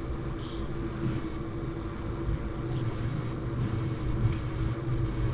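A steady low hum with a few faint clicks and rustles as electrical wire is handled and fed into the terminals of a plastic wall light switch.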